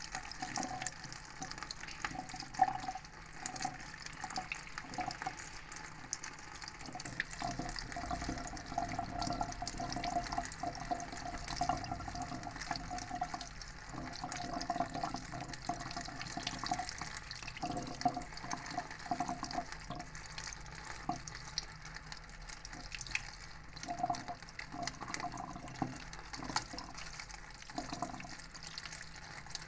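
Kitchen tap running into a stainless steel sink, the stream splashing over hands and a salted crab being rinsed and cleaned, with small clicks throughout and a sharp knock about two and a half seconds in.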